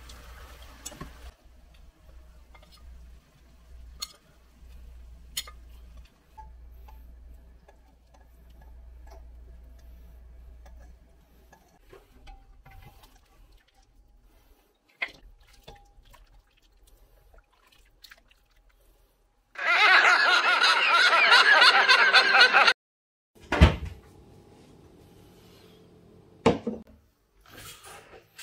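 Oxtail broth poured into a bowl: a loud rush of liquid lasting about three seconds, about two-thirds of the way through. Before it there are a low hum and faint kitchen clicks; after it come two sharp knocks, like dishes set down.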